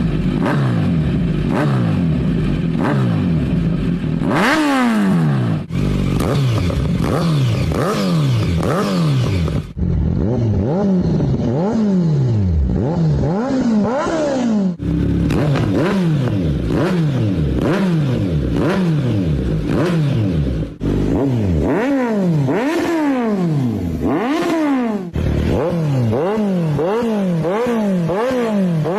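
Kawasaki Z900 inline-four engine revved again and again in quick blips, its pitch rising and falling over and over, heard through a series of different exhausts in short clips that cut from one to the next every few seconds.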